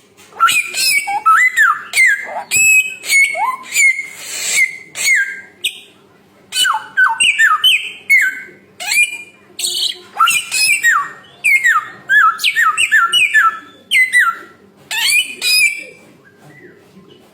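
A samyong songbird singing loud, rapid, varied phrases of whistled notes, many sliding down in pitch, with harsher notes mixed in. The song pauses briefly about six seconds in and stops shortly before the end.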